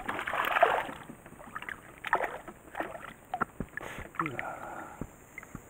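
A small hooked bass splashing at the water's surface beside the boat as it is brought in: a burst of splashing in the first second, then short, irregular splashes and knocks.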